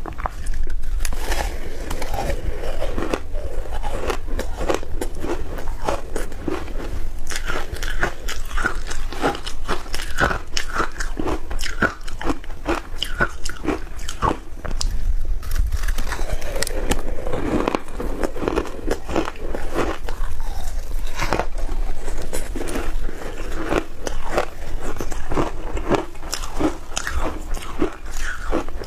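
Packed shaved ice coated in matcha and milk powder being bitten and chewed: a continuous run of crisp crunches.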